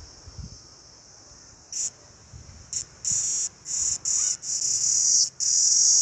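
Cicada calling: a high buzz that starts as a couple of short bursts, builds into pulses about half a second long with short gaps, and runs on unbroken near the end.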